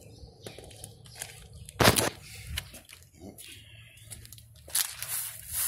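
Handling noise from a phone being carried in the hand: rustling and rubbing against the microphone, with a sharp knock about two seconds in.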